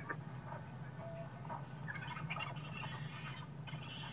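Birds in an aviary screeching harshly, a dense rasping racket that sets in about two seconds in and breaks off briefly near the end. A few faint chirps come before it, and a steady low hum runs underneath.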